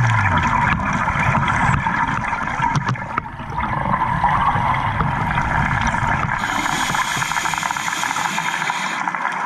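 Muffled underwater noise picked up through a dive camera's housing: a steady low rumble and hiss from scuba divers' exhaled regulator bubbles, with a brighter bubbling hiss from about six to nine seconds in.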